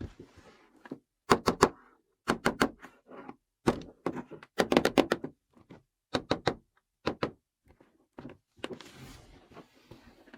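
Small toy kitchen and picnic set pieces being handled and set down: sharp taps and clicks in quick clusters of two to four, with a soft rustle about nine seconds in.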